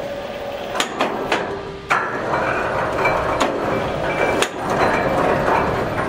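Several sharp wooden knocks and clacks as sawn timber boards are handled and set down on a stack, over the steady noise of sawmill machinery running.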